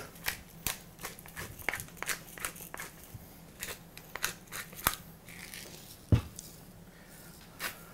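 Hand pepper mill grinding black pepper: a run of quick, irregular crunching clicks for about five seconds, then a single dull knock about six seconds in.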